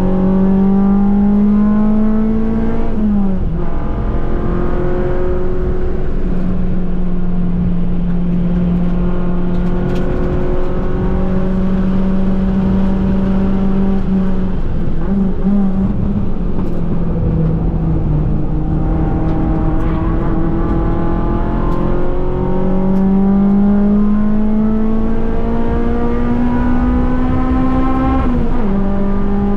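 Naturally aspirated 1.6-litre Toyota 4A-GE 20-valve four-cylinder of an AE101 Corolla race car running hard at high revs, heard inside the cabin. Its pitch holds fairly steady through the corners, climbs steadily as the car accelerates onto the straight, and drops sharply at gear changes about three seconds in and near the end.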